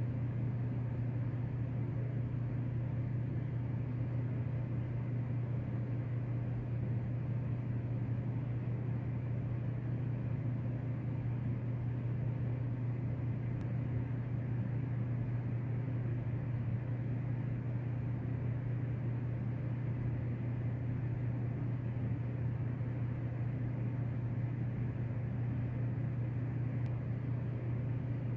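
A steady low mechanical hum over an even background hiss, unchanging throughout.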